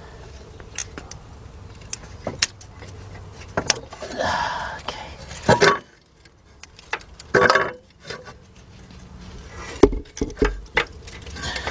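Scattered small clicks, clinks and rustles of hands working at the oxygen sensor's wiring plug and clip under a car, with a few louder scraping bursts about halfway through.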